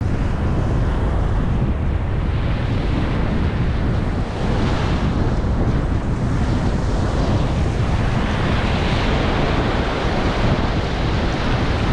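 Ocean surf washing in, swelling louder a couple of times as waves break, with strong wind rumbling on the microphone.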